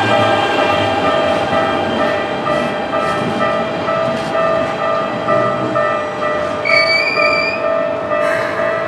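Japanese level-crossing warning bell dinging in a steady, evenly repeating rhythm while a Keikyu train runs over the crossing. About seven seconds in, a brief high squeal lasting under a second rises slightly in pitch.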